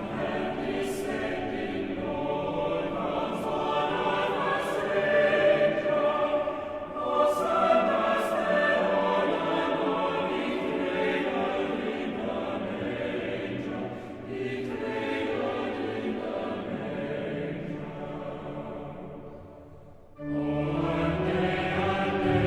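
Choir singing a Christmas carol in long phrases, with short breaks between them, swelling louder about twenty seconds in.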